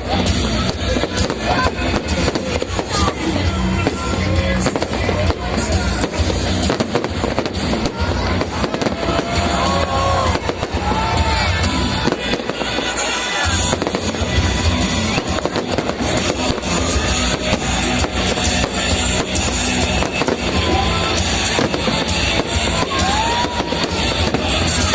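Fireworks display: a dense, continuous barrage of bangs and crackling, with music playing alongside.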